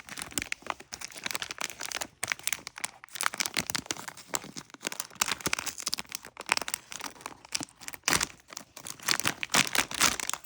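Blind-box packaging being opened by hand, with irregular crinkling and some tearing throughout.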